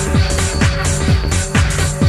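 Electronic dance music from a club DJ set, driven by a steady kick drum at about two beats a second over held synthesizer tones.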